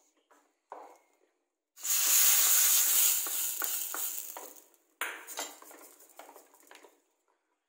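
Hot oil tempering with garlic and curry leaves sizzling loudly for about three seconds as it is poured from a tempering ladle into wet ground tomato chutney. It is followed by a spoon scraping and clinking against a steel bowl as it is stirred in.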